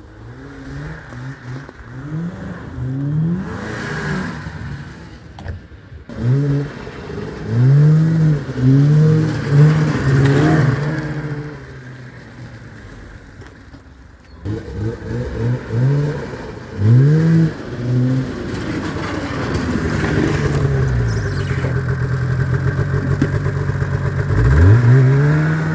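1989 Yamaha Exciter snowmobile's two-stroke engine running and revving after sitting for years, carbs freshly cleaned. The throttle is blipped again and again, so the revs rise and fall in quick bursts. It holds a steadier speed for a few seconds, then gives one last big rev near the end.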